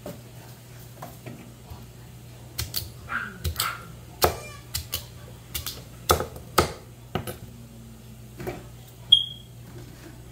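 Kitchen knife chopping squash on a thick wooden cutting board: about a dozen sharp knocks at irregular intervals. Near the end there is a short metallic ping.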